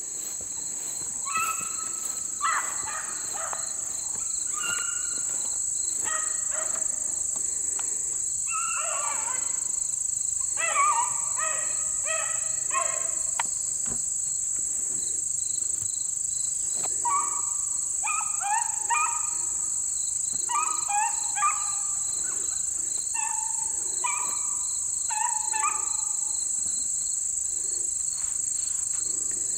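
A pack of beagles baying out of sight, in bouts of short broken calls, as hounds do when running a rabbit on scent. Under them runs a steady high-pitched drone of insects.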